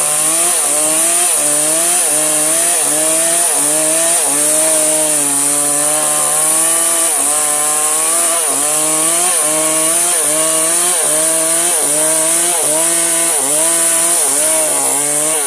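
Electric chainsaw cutting firewood, its motor pitch sagging and recovering about every two-thirds of a second as the chain bites into the wood, over a steady high hiss.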